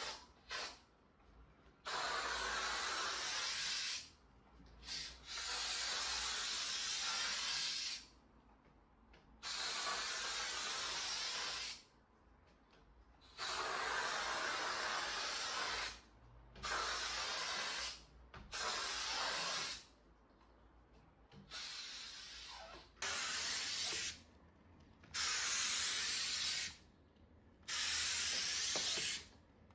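Repeated hissing spray bursts from a cleaning sprayer used on window glass. There are about ten bursts, each a steady hiss lasting one to three seconds that starts and stops sharply, with short pauses between them.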